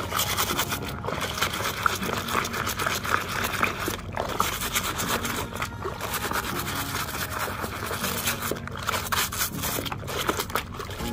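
A brush scrubbing a toy road roller in quick, scratchy strokes, with some water trickling.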